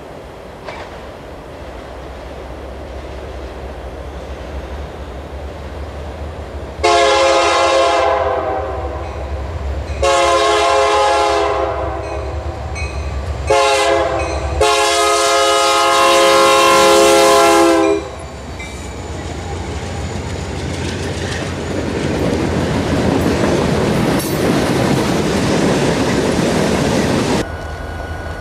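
Diesel freight locomotive's multi-tone air horn sounding long, long, short, long, the grade-crossing signal, over the low engine rumble of the approaching train. The locomotives and freight cars then pass close by with a rising rumble and wheel noise that cuts off suddenly near the end.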